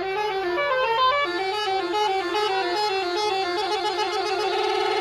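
Musical multi-tone vehicle horn (Indonesian telolet-style horn) playing a quick melody of stepped notes, breaking into a fast trill near the end.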